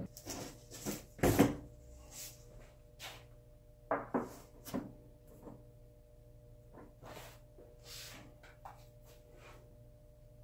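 Handling noises of sheet goods: scattered knocks and short rustling, sliding sounds, the loudest a thump about a second in, as a panel of MDF is laid onto a glued plywood cart top.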